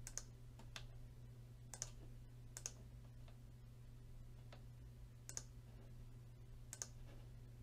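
Computer mouse button clicking about seven or eight times, short single clicks at uneven spacing as drop-down entries are picked, over a faint steady low hum.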